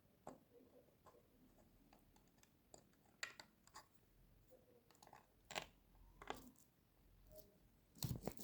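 Faint handling noises: a few scattered light clicks and knocks of small plastic parts and cable being handled, growing into a quick cluster of clicks and rustles near the end.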